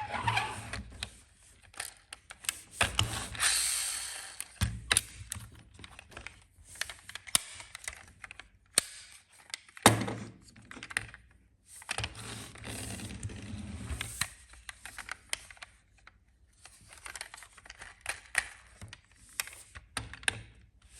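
Small toy cars being handled and moved: irregular clicks and taps with short scraping runs, the sharpest click about ten seconds in.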